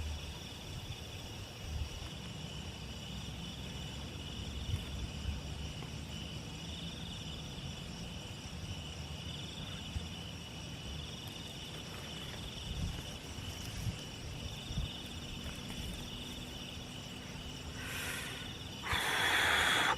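Crickets and other night insects chirring steadily, their trill swelling and fading every second or two, over a low rumble. About a second before the end a loud rushing noise starts.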